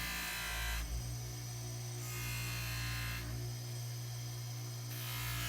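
Bench grinder with a muslin buffing wheel running with a steady electric hum while a hoof knife's edge is touched up on it; the blade on the wheel adds a high hiss that comes and goes in about three short passes.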